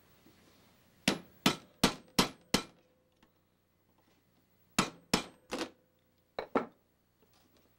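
Hammer striking a punch held on the rivets of a machete's wooden handle scales, setting the rivets: ten sharp strikes, a quick run of five, then three, then two.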